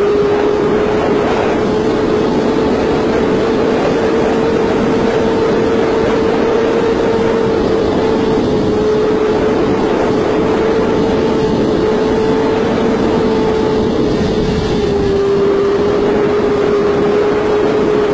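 Sport motorcycle engine held at steady high revs, one constant whining note that barely changes pitch, under loud rushing wind noise from riding at speed.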